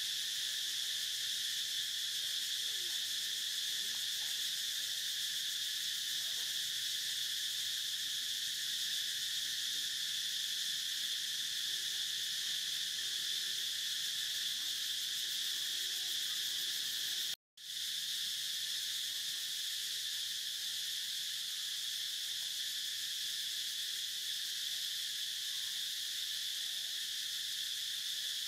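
Steady, high-pitched insect chorus that drops out for an instant about two-thirds of the way through.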